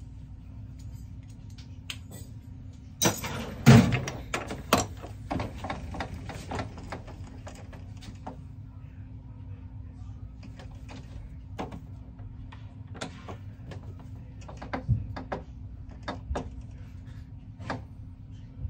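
Manual Logan metal lathe being worked on a brass saxophone neck tenon: a steady low hum, with a quick run of sharp metallic clicks and clanks about three seconds in, loudest near four seconds. Scattered single clicks follow as the tool post and carriage handwheel are handled.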